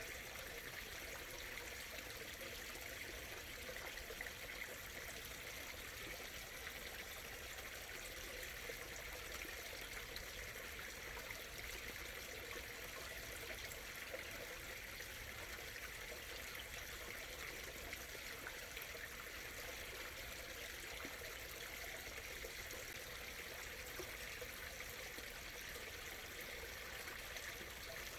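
Small stream running over stones, a steady murmuring and trickling of water.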